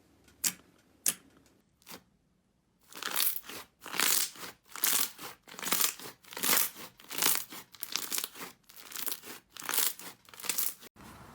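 Slime being pressed and worked by hand, giving a few sharp clicks, then a short pause, then a regular run of crackly bursts, about one and a half a second.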